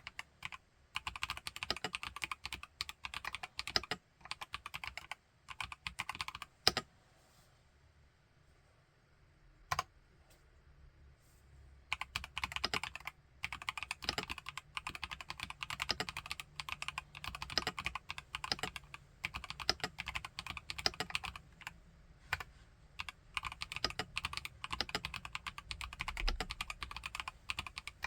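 Fast typing on a 66-key IQUNIX Q66 mechanical keyboard fitted with TTC Holy Panda tactile switches: dense runs of sharp key clacks. The typing pauses for a few seconds about a quarter of the way in, broken by a single key press, then runs on steadily to the end.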